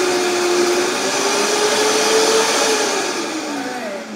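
High-speed countertop blender running, blending a strawberry margarita; its motor pitch glides down and the sound fades over the last second as it spins down.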